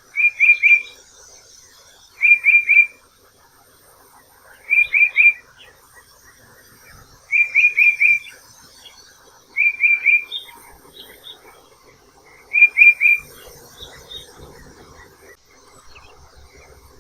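A bird singing short phrases of three or four quick, clipped chirps, repeated six times a couple of seconds apart.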